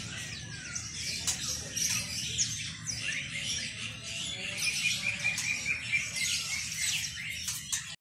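Many caged songbirds chirping and twittering at once: a dense mix of short, high calls and quick sweeps, with a run of evenly repeated notes in places.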